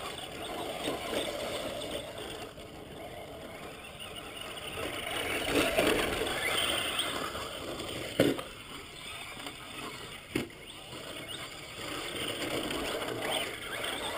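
Brushless electric RC short-course truck (Traxxas Slash 4x4 VXL) driving through loose sand, heard as a rushing noise that swells about halfway through. Two sharp knocks come shortly after.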